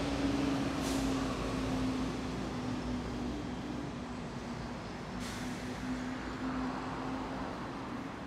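City road traffic: a steady wash of passing vehicles with a constant low engine hum, and two short hisses, about a second in and about five seconds in.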